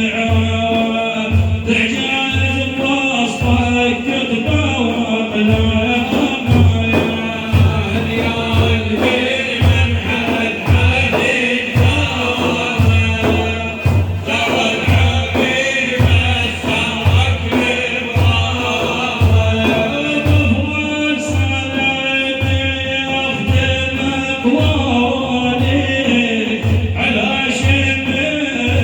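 Islamic praise chant (madih) sung by male voices over a steady, evenly repeating low drum beat.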